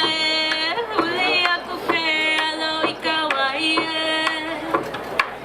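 Hawaiian hula song, a voice singing long held notes that glide between pitches.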